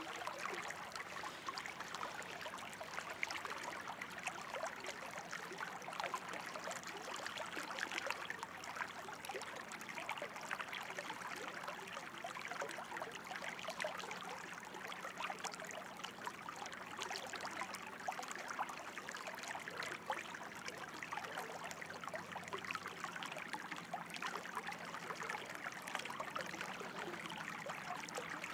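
Running water trickling and splashing steadily, an even rush dense with small splashes that does not let up.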